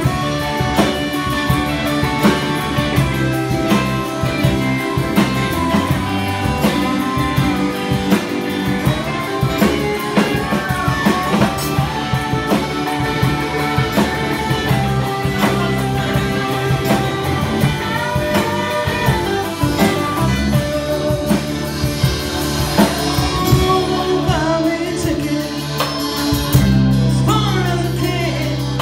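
Live rock band playing: electric guitar and drum kit, with singing over the top.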